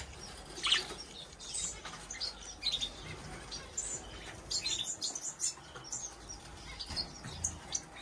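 A room full of finches and other small cage birds chirping, with many short high calls scattered through and overlapping.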